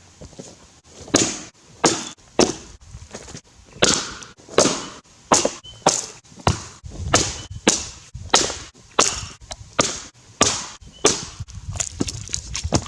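A Tasmanian-pattern felling axe chopping into a Grey Gum log, bucking it through. Sharp strikes come in a steady rhythm, about one or two a second, starting about a second in.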